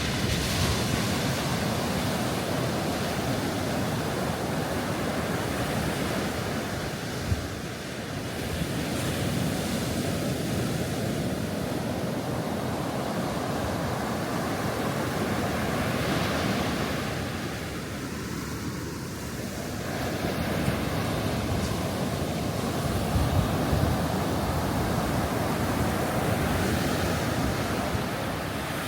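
Ocean surf washing onto a beach, a continuous rush of breaking waves that swells and ebbs every several seconds.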